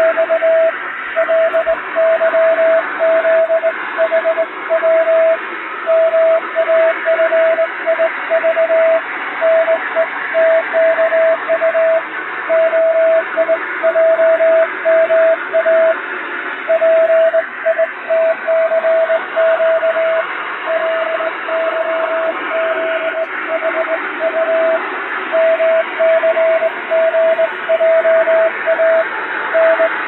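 Morse code sent by hand on a vertical straight key: a steady pitched tone keyed on and off in dots and dashes of five-letter code groups, over a constant hiss of added radio-style noise.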